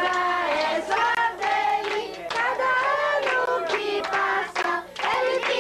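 A group of voices, children among them, singing a birthday song together, with hands clapping along.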